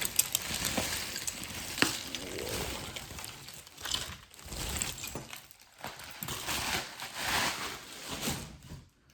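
Hands handling a bulk lot of jewelry and its packaging: irregular rustling and crinkling with scattered sharp clinks, two of them louder near the start.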